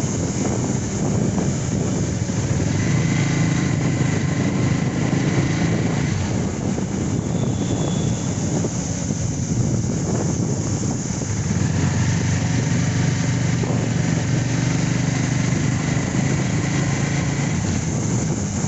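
Motorcycle engine running as the bike rides along, with wind rushing over the microphone. The engine note eases off for a few seconds in the middle and picks up again about twelve seconds in.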